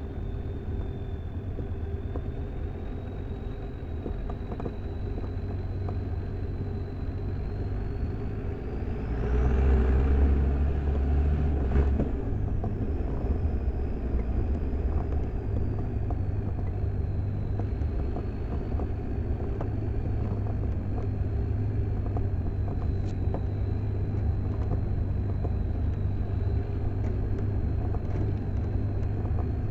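Land Rover Defender 90 Td5's five-cylinder turbodiesel engine running as the vehicle drives a dirt track: a steady low rumble. It grows louder for a few seconds about nine seconds in, and a faint high whine drifts up and down through it.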